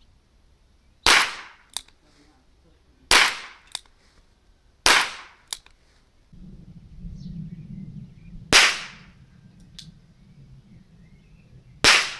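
Zoraki R1 Flobert revolver firing five single shots, each a sharp crack from a powderless cartridge holding only an enlarged primer, two to four seconds apart. A fainter click follows most shots, and a low rumble comes in about halfway through.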